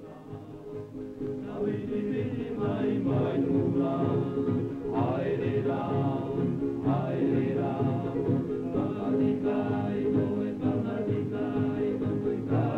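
Soundtrack music of a group of voices singing together, fading up over the first two seconds and then continuing steadily.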